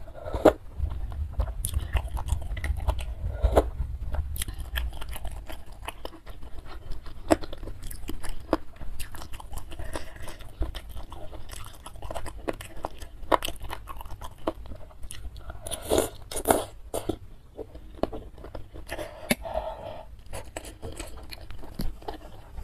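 Close-miked eating of spicy noodle soup: wet chewing and slurping of broth, with many short sharp mouth clicks and a few longer slurps.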